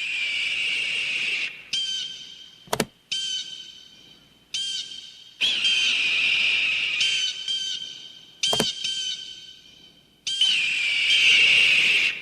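Eagle calling: a long high screech followed by a run of short piping calls, the pattern repeating three times. Two sharp clicks fall between the calls.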